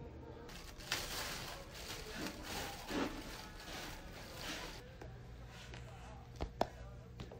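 Cat litter being scooped in a plastic litter box: a gritty rustling and scraping for a few seconds. Near the end come three sharp knocks.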